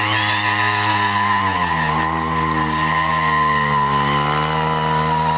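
Stunt motorcycle engine held at high, steady revs with a sustained high tyre squeal, the revs easing slightly about a second and a half in.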